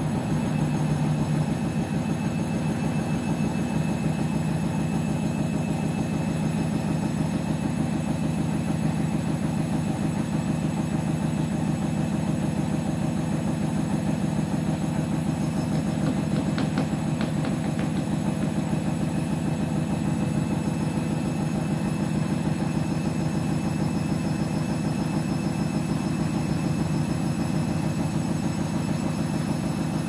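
Candy front-loading washing machine running mid-cycle with water in the drum, overloaded with about 8 kg in a 7 kg machine: a steady mechanical hum.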